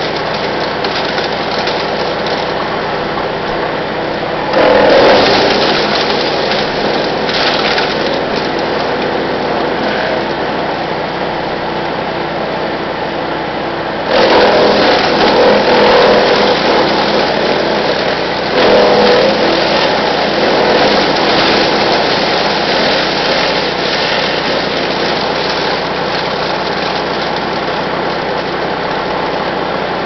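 Brush Master 3-inch chipper's engine running steadily, with louder stretches of grinding and crunching as branches are fed through the side chute: about four seconds in, for a few seconds around the middle, and again shortly after.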